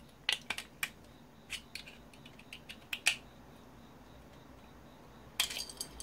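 Sharp clicks and taps of a steel pry bar working at a small plastic vacuum-cleaner part with metal pieces in it, as the part is levered apart for scrap. The taps come a few at a time early on, once about three seconds in, and in a quick cluster near the end.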